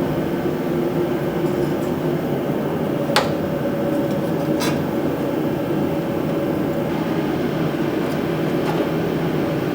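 A steady mechanical hum with a faint held tone, with two sharp clicks about three and four and a half seconds in.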